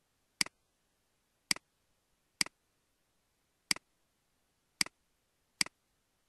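Computer mouse button clicking six times at uneven gaps, about one a second. Each click is a quick pair of ticks, press then release.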